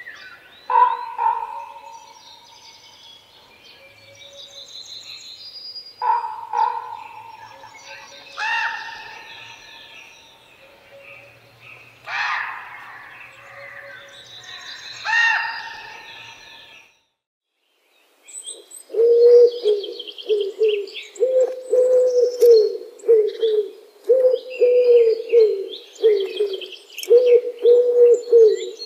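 A crow gives a series of caws spaced a few seconds apart. After a short break, a rock pigeon coos in a quick repeated run, with small chirps over it.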